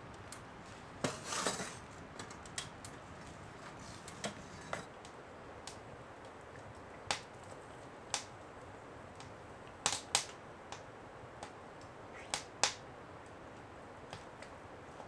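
Wood fire crackling in a small tent stove: sparse sharp pops, singly or in pairs every second or two, over a quiet background.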